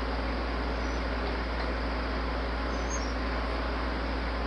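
Steady background noise: a constant low hum and hiss with no distinct events.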